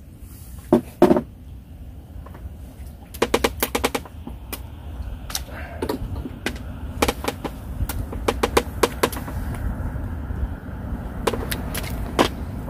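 Two loud knocks about a second in, then quick runs of sharp clicks and rattles from fishing tackle and the catch being handled, as a crucian carp is landed by hand on a pole rod.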